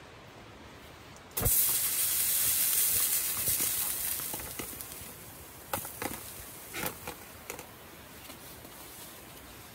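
Flames in an aluminium foil tray smothered with a wet tissue: a sudden loud hiss of steam starts about a second and a half in and fades over about three seconds as the fire goes out. A few light knocks follow.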